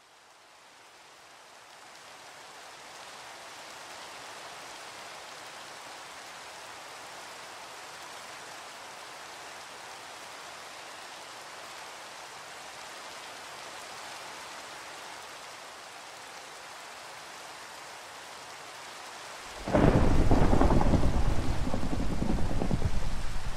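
Steady rain hiss, fading in over the first few seconds, then a sudden loud clap of thunder near the end that rumbles on and slowly dies away.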